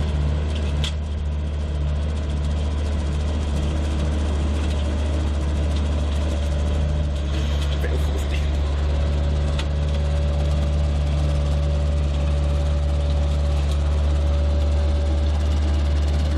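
Skid steer loader engine running steadily at a constant low drone; a thin steady whine joins in about halfway, with a few faint clicks.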